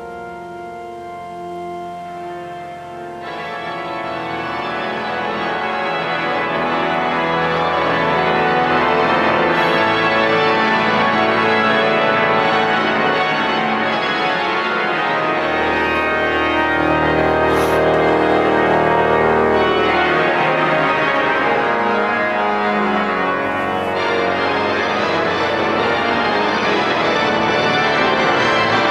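Cathedral pipe organ playing dense, sustained chords that swell louder about three seconds in, with a deep bass note held for a few seconds near the middle.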